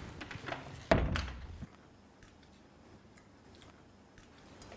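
A wooden door with a metal rim latch is shut with one sharp knock about a second in, with a few light latch clicks around it.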